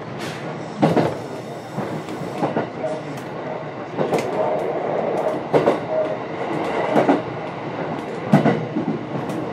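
Cabin running sound of a JR West 227 series electric train under way: a steady rumble of wheels on track, broken by sharp clacks of the wheels over rail joints every second or two, some coming in quick pairs.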